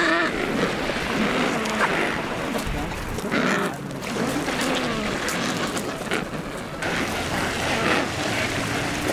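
Penguins calling in short, repeated, bending cries over splashing water and surf as a group of Adélie penguins dives off the shore.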